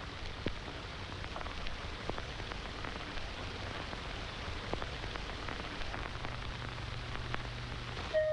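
Steady hiss and scattered crackle of a worn old optical film soundtrack, with a low hum under it and no dialogue.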